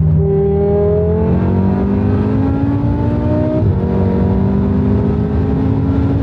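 Turbocharged five-cylinder engine under full-throttle acceleration, heard from inside the cabin: its note rises steadily, drops sharply at an upshift from third to fourth gear about three and a half seconds in, then climbs again toward about 6,000 rpm.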